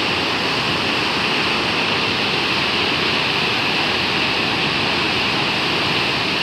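Minnehaha Falls, a waterfall: a steady, unbroken rush of falling water.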